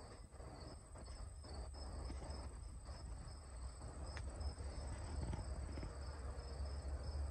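Insects chirping in the background: a steady high-pitched trill with a second, rhythmically pulsing chirp, over a low rumble.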